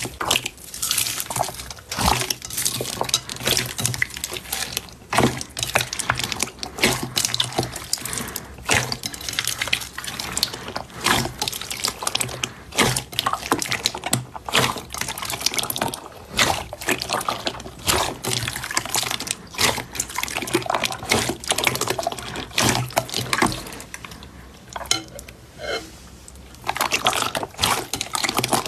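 Hands squishing and kneading wet, glossy red slime packed with foam beads: a dense run of irregular wet squelches, sticky pops and clicks, thinning out for a moment about three-quarters of the way through.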